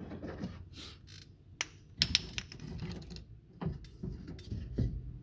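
Irregular metal clicks, rattles and a few knocks of a car door window regulator assembly being handled, with two sharp clacks about one and a half to two seconds in.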